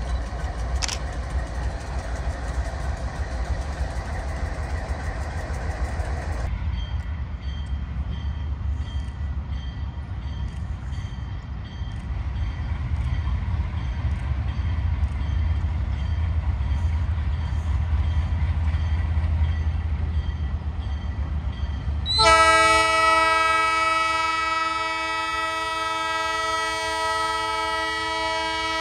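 Diesel locomotives hauling a train, their engines making a steady low rumble, first passing close by and then approaching from a distance. About two-thirds of the way in, the lead locomotive's multi-chime air horn sounds a long chord of several notes, the loudest sound here.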